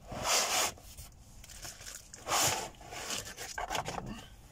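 A laptop in its black foam packing insert sliding out of a cardboard box: two loud scraping rubs of foam against cardboard about two seconds apart, with lighter rustling of the box between.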